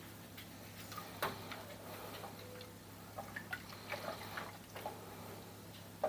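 Scattered faint clicks and light knocks, the loudest about a second in, from a wooden spoon stirring thick syrup in a metal stockpot, over a steady low hum.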